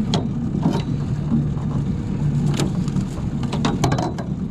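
A boat motor running steadily with a low hum, with a few scattered clicks and knocks.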